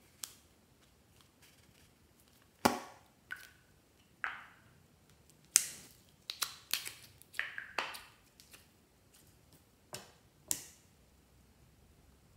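A small plastic slime container being handled and its slime squeezed out: a string of separate sharp plastic clicks and short wet squelches, with pauses between them, most crowded in the middle.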